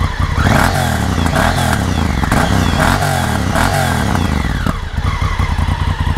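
Honda Africa Twin Adventure's 998 cc parallel-twin engine heard through its stock exhaust, revved about five times in quick succession, then settling to idle near the end.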